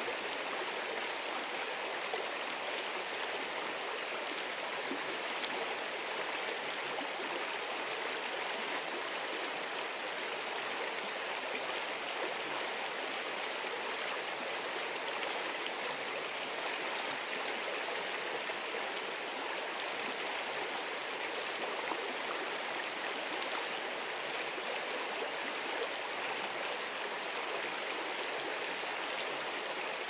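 Swift river current rushing over rocks and through shallow riffles: a steady, even hiss of moving water.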